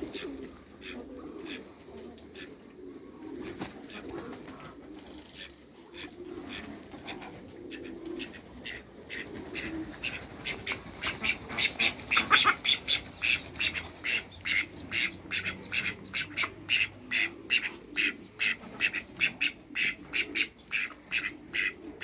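Ducks calling. There are soft, low calls at first, then from about ten seconds in a louder, rapid series of short quacks at about three a second that keeps going.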